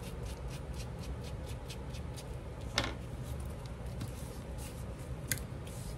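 Faint taps, light clicks and rustling of paper and craft materials being handled, with a louder tap about three seconds in and a sharp click a little after five seconds, over a low steady hum.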